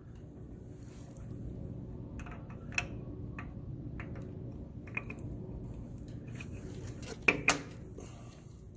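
Scattered light clicks and metallic clinks of a new brake pad being twisted and fitted onto the brake gear of a cart caddy's chain-drive brake, with a steady low hum underneath. A sharper pair of clicks comes near the end.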